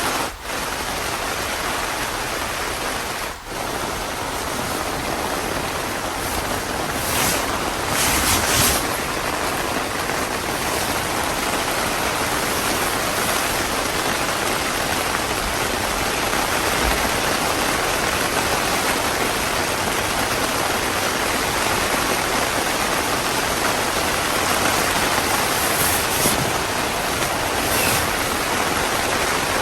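Heavy rain falling steadily, a dense even hiss that swells briefly a few times. It cuts out for an instant twice in the first few seconds.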